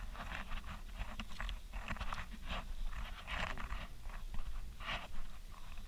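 A person walking with the camera along a path: irregular breathing and footsteps, over a low rumble of wind on the microphone.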